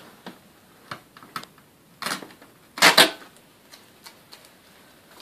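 Hard plastic parts of a Panasonic MC-CG917 canister vacuum clicking and knocking as they are handled: a few sharp clicks, two louder clacks around two and three seconds in, then a couple of faint ticks.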